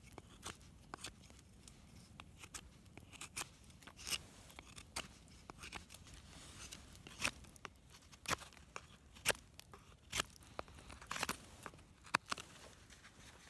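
Knife blades shaving and carving a wooden stick: irregular short scraping cuts, some sharper than others.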